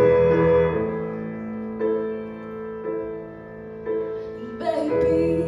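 Grand piano playing a slow instrumental passage, a new chord struck about once a second and left to ring, with the deep bass notes dropping out after the first second and coming back near the end.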